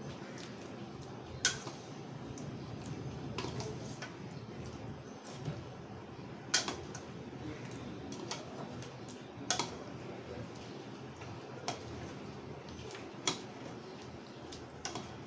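A metal spoon stirring thick curry in a stainless steel kadai, with a sharp clink every two or three seconds as it knocks the pan, over a steady low background noise.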